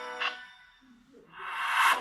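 Samsung Galaxy Note 3 Neo ringtones: one tune ends with a couple of last chiming notes, a brief near-silent gap follows, then a rising whooshing swell builds through the second half.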